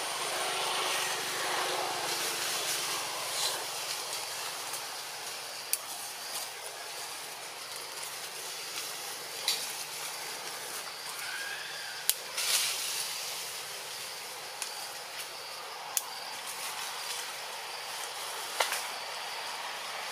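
Steady outdoor forest ambience, an even hiss, with a handful of sharp clicks scattered through it.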